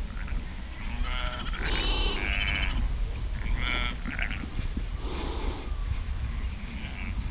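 A Merino flock of ewes and week-old lambs bleating, several overlapping calls with the loudest cluster about one to two and a half seconds in and scattered calls after, over a steady low rumble.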